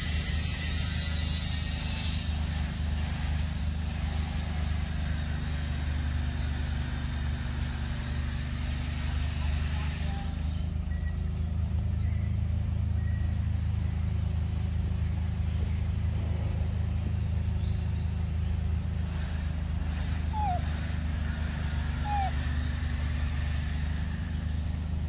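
A steady low mechanical hum, as from a running engine, with scattered high bird chirps and two short rising squeaks near the end.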